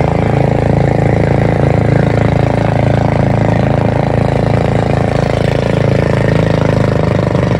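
Boat engine running steadily at an even pitch while the bamboo raft is under way, with water noise under it.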